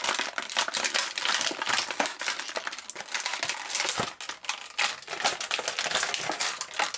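Thin clear plastic toy packaging crinkling and crackling as it is squeezed and pulled apart by hand, with a dense run of small snaps and clicks.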